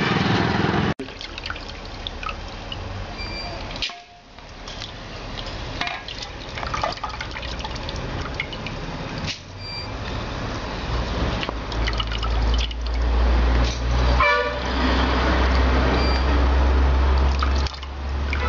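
Liquid splashing and dripping in a cooking pot, broken off abruptly several times. Brief car-horn toots sound in the background, and a low steady rumble comes in during the second half.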